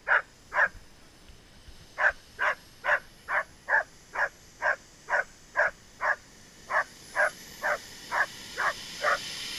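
A dog barking over and over at an even pace, about two barks a second, after a short pause near the start. A faint high whine rises in pitch over the last few seconds.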